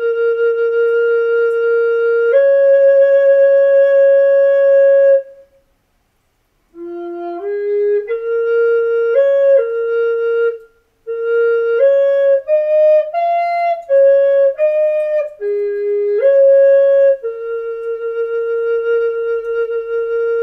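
Solo flute playing a slow folk melody from the throat-singing tradition, mostly in long held notes. It breaks off for about a second of silence about six seconds in, then plays a quicker phrase of short stepping notes, and it ends on a long held note.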